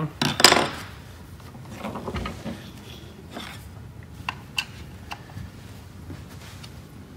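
Handling noise of a Lagler Flip floor edger being assembled on a wooden workbench: a brief loud clatter about half a second in, then softer rustling and a few scattered light clicks of parts and fasteners.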